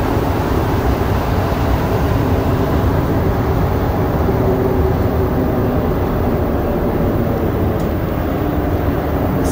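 Interior running noise of a Montreal Metro Azur (MPM-10) rubber-tyred train, a steady rumble with a wavering motor hum, as the train runs alongside a station platform.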